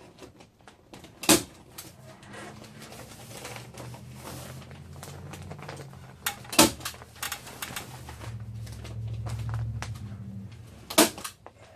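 Three sharp knocks a few seconds apart, over a low steady hum that swells near the end.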